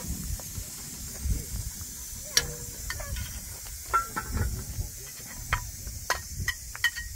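Tableware clinking: scattered clicks and knocks, then from about six seconds in a quick run of small ringing clinks of the same pitch, over a low rumble.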